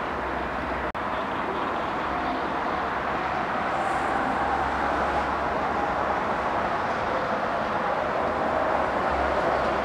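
Jet airliner engine noise at the airport, a steady rushing sound with a faint whine, growing slightly louder partway through. There is a brief dropout about a second in.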